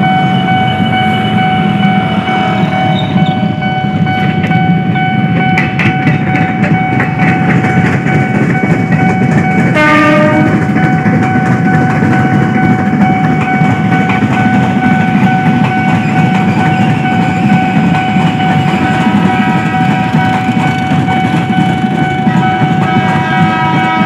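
Electric commuter train's horn held in one long unbroken note as the train runs past, its wheels clacking over the rail joints, with a brief lower note about ten seconds in and a second, differently pitched horn tone joining near the end. The long horn is a warning sounded at a curved level crossing where the train cannot be seen coming.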